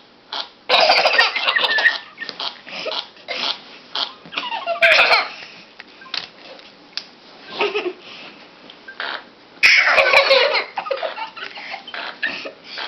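Three loud fart noises, each sliding down in pitch, about a second in, near the middle and near the end. Children giggle and laugh around them.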